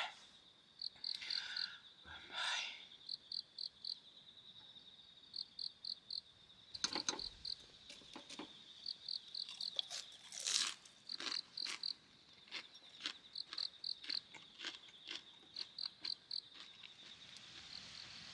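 Insects, crickets or similar, chirping in a regular rhythm: short groups of three or four high chirps about once a second over a steady high trill. Scattered sharp clicks and crackles, and a couple of brief rustling swishes, sound through it.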